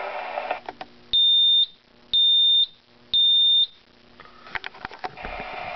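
Vocal smoke detector in drill mode sounding three loud, high-pitched beeps about a second apart, each about half a second long: the three-beep evacuation pattern.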